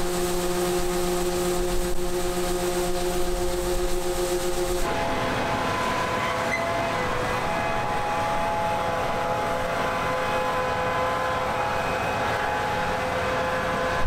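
John Deere combine harvester running with a steady, even whine made of several held tones. About five seconds in, the sound cuts to a different, higher set of steady tones, which waver briefly a couple of seconds later.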